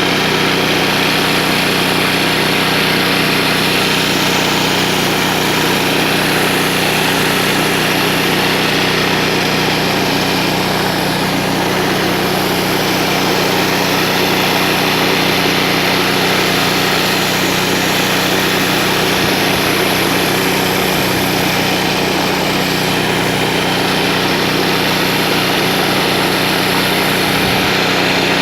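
Pressure washer's engine running steadily under load, with the hiss of high-pressure water from a rotating surface-cleaner disc spraying onto concrete, even and unbroken throughout.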